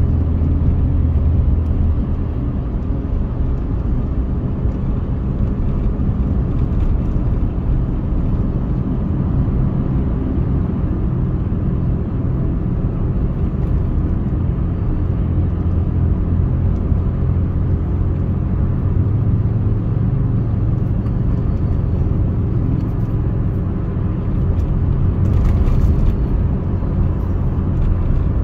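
Steady road noise of a car cruising on a concrete expressway, heard from inside the cabin: a continuous low rumble of tyres and engine.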